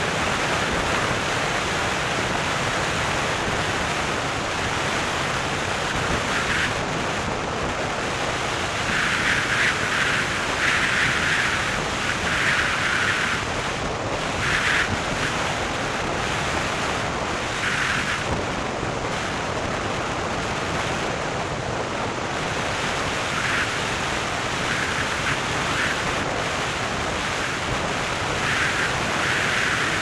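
Steady rushing wind and road noise from a car driving at speed, with a louder hiss surging every few seconds.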